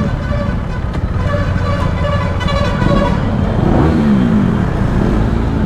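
KTM motorcycle engine running at low speed as the bike creeps along, a steady low rumble. A horn-like tone sounds over it from about one to three seconds in, and the pitch rises and falls briefly around four seconds in.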